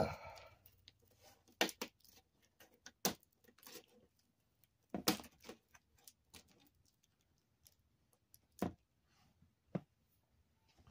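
Hands working parts on the sheet-metal back of a flat-screen TV panel: scattered light clicks and taps, with about five sharper knocks spread through.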